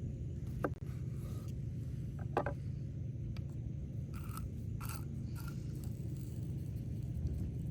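A person biting and chewing food, with a few short crunchy bites and scrapes over a steady low background rumble; the crunchy sounds bunch together in the middle.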